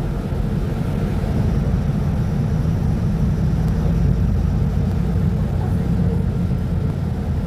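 Diesel engine of a Mercedes-Benz O500U city bus running under way, a steady low rumble that grows a little louder a couple of seconds in and then holds.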